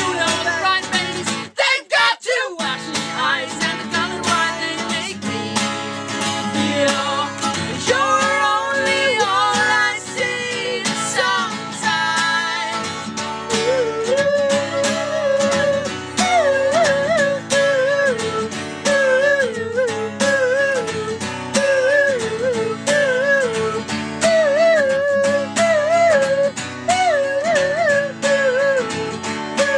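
Song played on acoustic guitar with voices singing a wavering melody that the recogniser takes for no words. The music drops out briefly about two seconds in.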